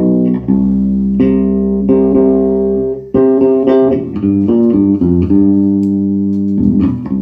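Electric bass guitar played through a Peavey MaxBass 110 combo amp: a string of plucked notes, many held for about a second, with a short break about three seconds in. The amp is working again after repairs to its power supply, preamp and class D amplifier chip.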